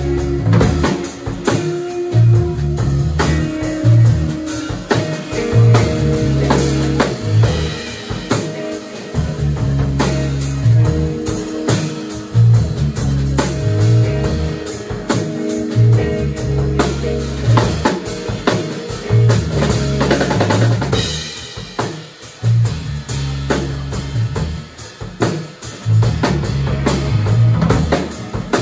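Live instrumental trio playing a groove: drum kit with a steady beat and bass-drum hits, electric bass holding low notes, and electric guitar.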